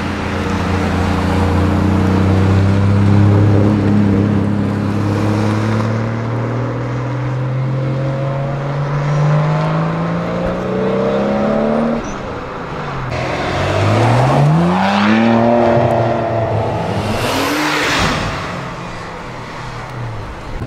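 Tuned cars' engines and exhausts accelerating away: one engine note climbs slowly and steadily for about twelve seconds, then stops abruptly, and two short revs follow, each rising and falling in pitch.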